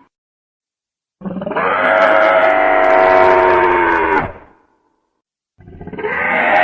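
Stock dinosaur roar sound effects: a loud, pitched roar lasting about three seconds that trails off, then a second roar starting near the end.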